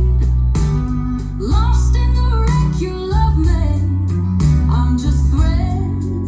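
A pop song with a singing voice, guitar and heavy bass, played loud through an Arc Audio two-way speaker set (RS 1.0 with RS 6.9) as a sound test.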